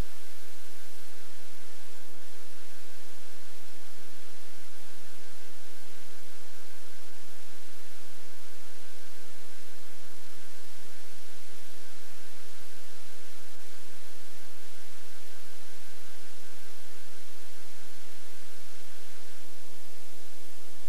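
Steady electrical hum made of several constant tones, under an even hiss, from a VHS tape's playback. It stays unchanged throughout.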